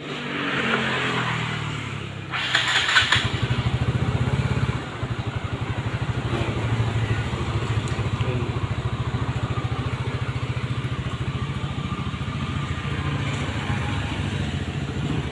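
Yamaha Fino scooter engine started with the key: it catches, is revved briefly about two to three seconds in, then settles into a steady, evenly pulsing idle.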